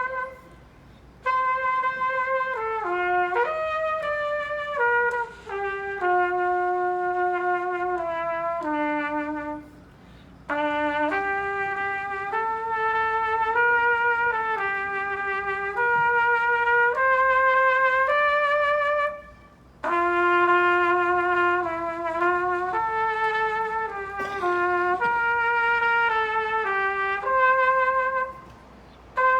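Trumpet playing a slow hymn-like melody on its own, in phrases of about ten seconds with short breathing breaks between them.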